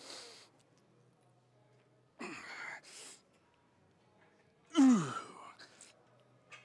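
A man grunting and breathing out hard with the strain of pull-up reps, in three efforts. The loudest, about five seconds in, is a groan that falls steeply in pitch, followed by short puffs of breath.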